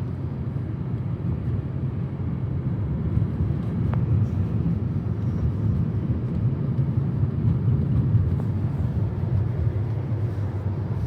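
Car driving at a steady pace, heard from inside the cabin: an even, low road-and-engine rumble.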